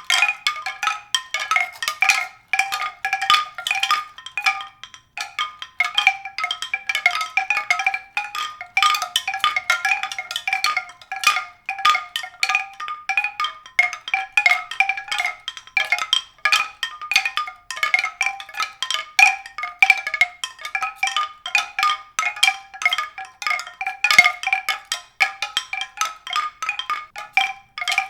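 Music of struck, bell-like pitched notes in a fast, continuous, irregular stream, like mallet percussion.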